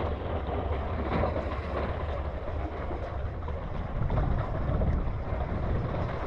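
Wind rumbling on the microphone over open water, with faint splashes and lapping as a wooden paddle sculls a round basket boat.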